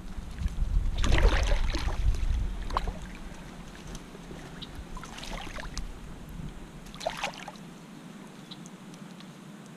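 Shallow pond water splashing and sloshing as a hand moves in it at the bank. There are three irregular bursts: about a second in, around five seconds and about seven seconds in.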